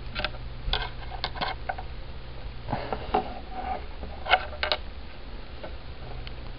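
Plastic Lego bricks clicking and knocking as they are handled, an irregular scatter of short sharp clicks over a low steady hum.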